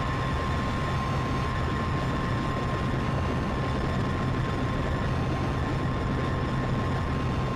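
Noisy ambient synthesizer drone from a Moog Grandmother and Eurorack modular rig: a steady wash of noise with one held high tone and a low hum underneath.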